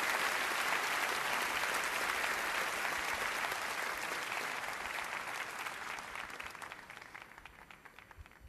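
Large audience applauding, the applause slowly dying away, thinning to a few scattered claps near the end.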